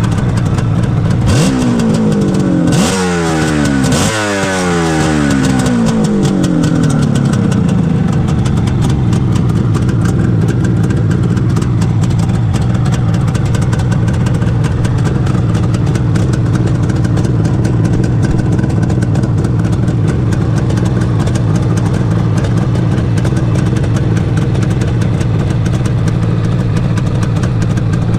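1979 Suzuki GT550's air-cooled two-stroke three-cylinder engine running. It is blipped three times in quick succession in the first few seconds, each rev rising sharply and falling back, then it settles to a steady idle.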